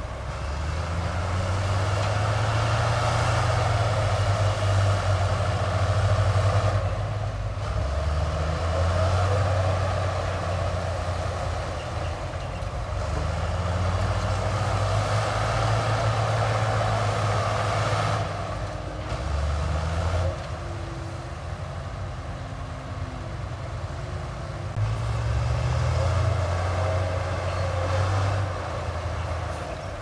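Heavy diesel engine of a large work machine running under load, revving up and easing off in several long surges.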